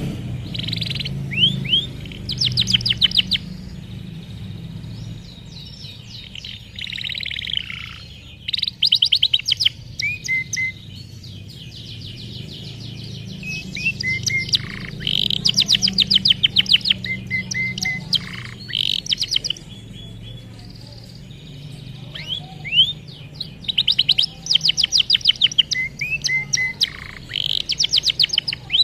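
Canary singing in bursts of fast trilled phrases with short pauses between them, over a low steady hum. The bird is coming out of its moult and getting back into full song.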